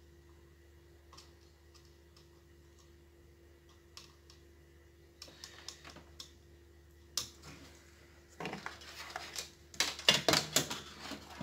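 Light clicks of multimeter probe tips tapping on a circuit board's solder points, growing more frequent, then louder clattering of tools and hard parts being handled near the end.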